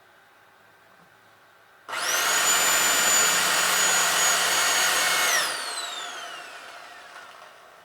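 Electric drill with a 4 mm bit drilling out a rivet on a Toshiba twin-tub washing machine motor. It spins up with a quickly rising whine about two seconds in, runs steadily for about three and a half seconds, then is released and winds down with a long falling whine.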